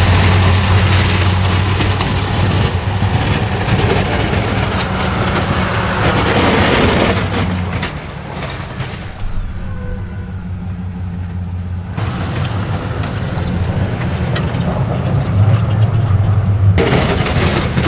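Snowplow truck engine running steadily under a rushing, scraping noise of the plow pushing snow. The higher noise drops away sharply a couple of times, as if between short takes.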